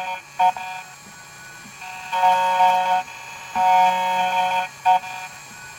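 Background music: sustained electronic chords that come in blocks of about a second, with short stabs between them.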